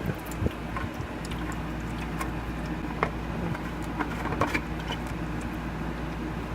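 Water running steadily from a tap into the humidifier's plastic water canister, with a few light plastic knocks as the canister is handled.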